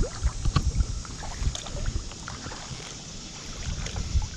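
Kayak paddling: the paddle dips and splashes, water drips from the blades, and there are scattered small clicks over an uneven low rumble. The sound eases for a moment a couple of seconds in.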